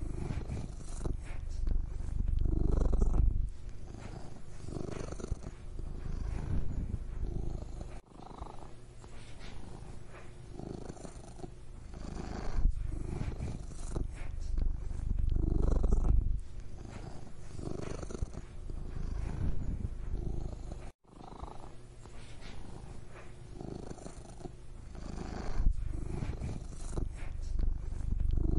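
Domestic cat purring close up: a steady low rumble that swells and eases every two to three seconds, breaking off for an instant twice.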